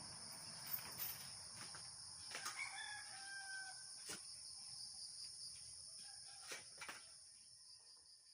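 A rooster crows once, about a third of the way in, over a steady high-pitched chorus of insects. A few sharp clicks are scattered through it, and the sound fades away near the end.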